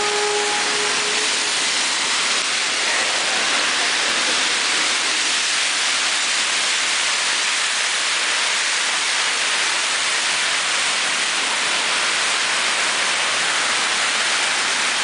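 Heavy rain pouring down on a flooded city street: a loud, steady hiss of water, with cars splashing through the standing water. A pitched tone stops within the first second.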